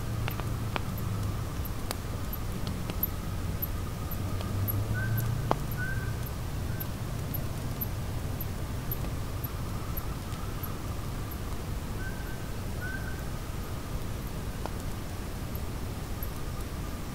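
Outdoor wildlife ambience: a two-note call repeats about every seven seconds over fast, very high-pitched chirping that thins out after about ten seconds. A low steady rumble and a few sharp clicks sit beneath.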